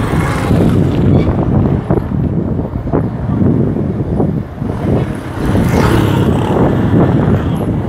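A motor vehicle running along a road, heard from on board: an uneven low rumble of engine and road noise.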